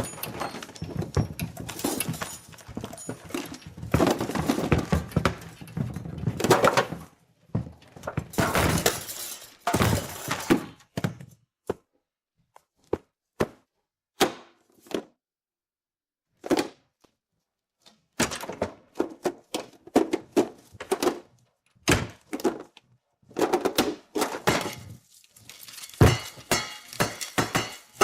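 Cartoon sound effects: runs of rapid knocking, clattering and crashing, broken by short silences, with a heavy thump near the end.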